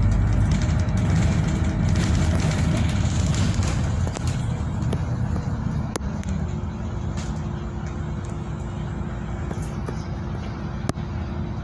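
Engine and road noise inside a moving bus: a steady low rumble that eases off a little about four seconds in. A steady hum joins it from about six seconds in, and there are a couple of sharp clicks.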